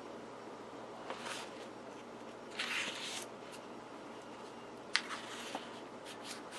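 Pages of a paperback tube manual being flipped: a few soft paper swishes, one longer rustle about two and a half seconds in, and a sharp click near the end.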